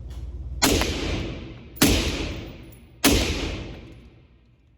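Three shots from an AR-15 firing 5.56 ammunition, about 1.2 seconds apart, each followed by a long echoing decay.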